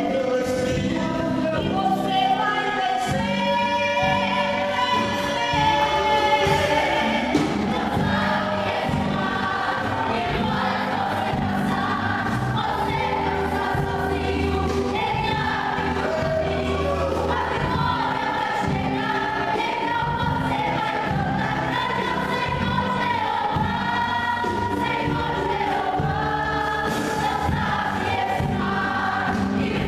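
Gospel vocal group singing a praise song in harmony, over a band with a steady bass line and cymbal-like beats.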